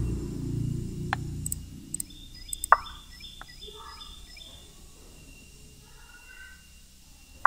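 A few short, sharp clicks, over a low rumble that fades away in the first couple of seconds.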